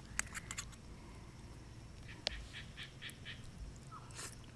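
Eating cold noodles with a fork from a camp bowl: a few light clicks of the fork against the bowl, then a short slurp as the noodles are drawn into the mouth near the end.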